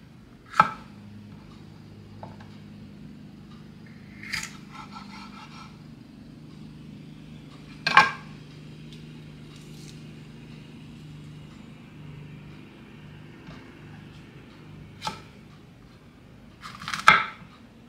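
Kitchen knife slicing mini sweet peppers on a wooden cutting board: occasional sharp knocks of the blade meeting the board, the loudest about eight seconds in, with a quick run of cuts near the end. A faint steady low hum lies underneath.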